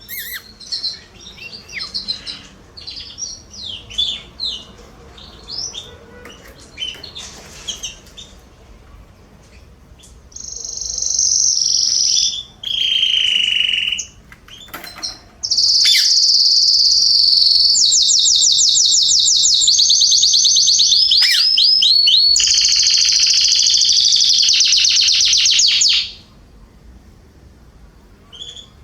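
Domestic canary singing. Scattered short chirps give way, about ten seconds in, to a loud, high song of long rolling trills that stops abruptly near the end.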